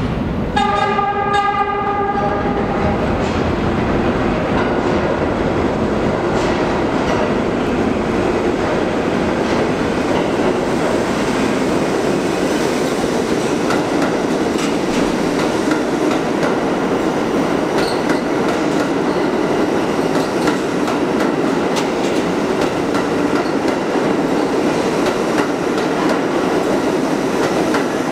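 An R62A subway train sounds its horn once, for about two seconds, just after the start, as it enters the underground station. Then its wheels and motors run steadily as the cars roll past the platform, with wheel clatter on the track.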